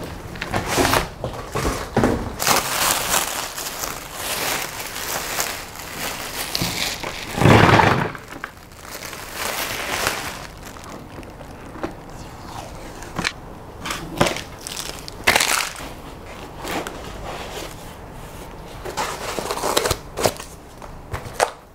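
Plastic packaging bag crinkling and rustling as it is pulled off a boxed machine, along with handling of foam packing, in irregular bursts. The rustling is densest in the first half, with one louder bump about a third of the way in, and turns sparser after.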